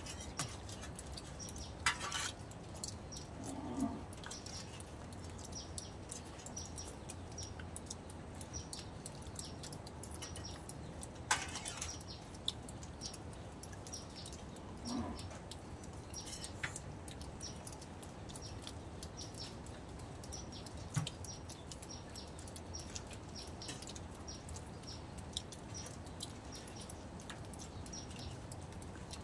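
Small birds chirping in short high notes, about two a second, throughout. Twice there is a sharp clatter, metal spoons against the steel serving tray.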